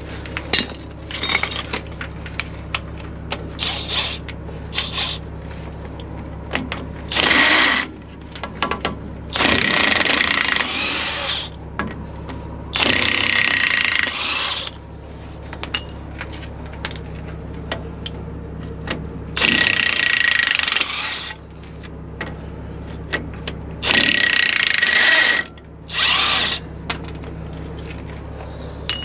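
Cordless power tool whirring in about six bursts of one to two seconds, spinning out drive shaft U-joint bolts after they were broken loose by hand. Short clicks of hand tools on the bolts come in between.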